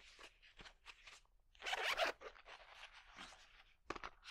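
Zipper of a small soft case being pulled open in short scratchy strokes, with a longer stroke about two seconds in and a couple of sharp clicks near the end.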